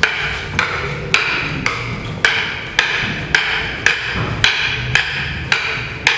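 Wooden training sticks clacking together in a double-stick drill, a steady run of about a dozen sharp strikes at roughly two a second, each one ringing briefly.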